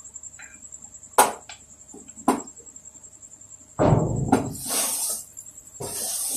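Two sharp metal clinks, then a metal spatula scraping and stirring in a metal kadhai where roti pieces and vegetables are being stir-fried, in two noisy bursts of stirring.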